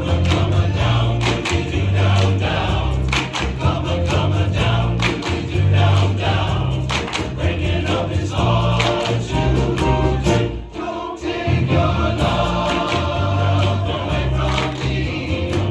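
Men's chorus singing a 1960s pop song over instrumental accompaniment with a steady, pulsing bass beat. The music dips briefly about ten and a half seconds in, then carries on.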